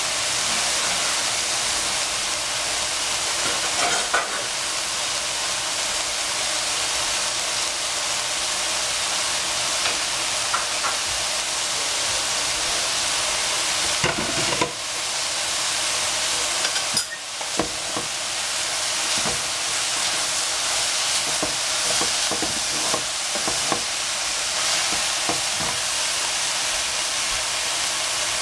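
Broccolini and capsicum strips frying in a nonstick pan: a steady sizzling hiss. Scattered light clicks and scrapes, thickest in the second half, come from a wooden spatula stirring the vegetables.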